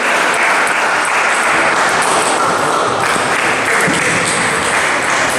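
Steady, even clatter of table tennis balls being hit and bouncing at many tables around a busy playing hall, merging into one continuous noise.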